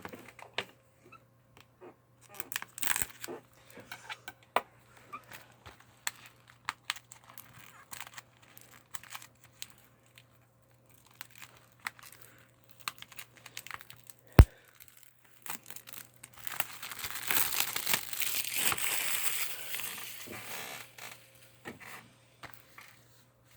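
Plastic wrap being torn and crinkled off a Blu-ray case, with scattered clicks and handling noises. There is one sharp snap about fourteen seconds in, then a long stretch of loud crinkling.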